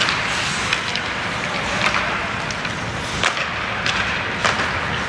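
Sharp clacks of hockey sticks and puck on the ice, about five single hits a second or so apart, over a steady hum of rink noise.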